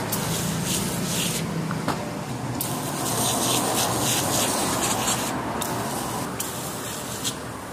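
Water jet, most likely from a pressure washer, spraying and splashing over a foam-covered RC truck's wheels and chassis, the high hiss of the spray coming and going in spurts.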